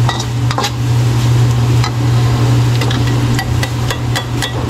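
Metal ladle clicking and scraping against a small wire strainer of annatto seeds dipped in hot oil in a wok, pressing the seeds to colour the oil: irregular metal-on-metal clicks over a steady low hum.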